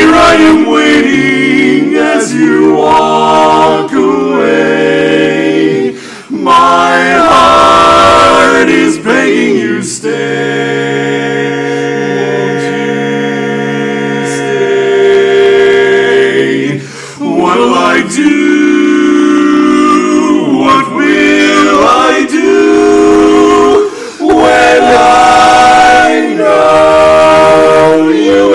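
Male barbershop quartet singing a cappella in close four-part harmony, moving from chord to chord, with one long held chord from about ten to sixteen seconds in.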